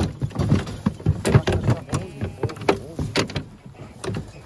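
Busy clatter of knocks and rattles from a metal sheep-handling race and scanning crate as ewes are moved through, with a voice over it.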